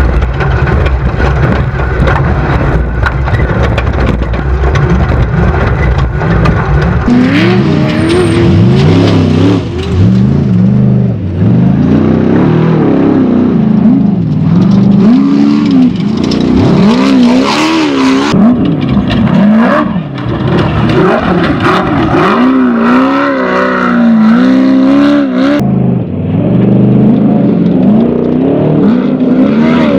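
Off-road desert race buggy's engine revving hard, its pitch climbing and dropping again and again every second or two. A heavy low rumble fills the first several seconds before the engine's rising and falling note takes over.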